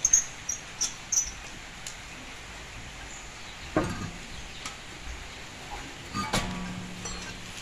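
Lug nuts being taken off a car's steel wheel by hand: a few faint metal clicks in the first second or so. A short pitched call sounds about four seconds in, and a second one near the end is held for about a second.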